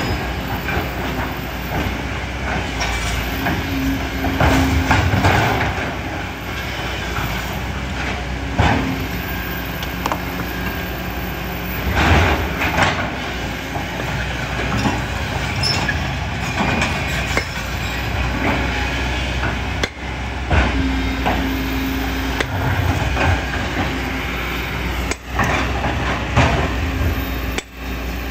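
Kobelco hydraulic excavator working in sand, gravel and stone: the diesel engine runs steadily under load while the steel bucket and tracks rattle and scrape, with several sharp clanks of metal against rock.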